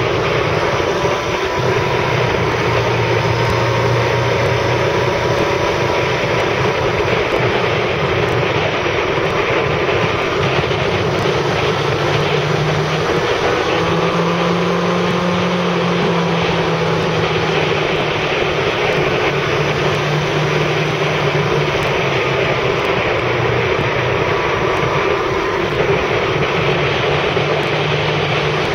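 Motorcycle engine running under way, its pitch shifting up and down several times with the throttle, under heavy wind and road noise.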